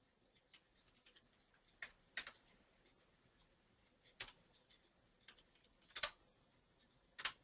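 Faint computer keyboard keystrokes: about eight separate clicks at irregular spacing, with near silence between them.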